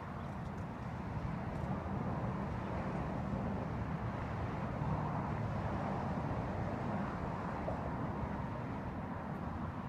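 Steady outdoor background rumble, low and unbroken, with no distinct events standing out.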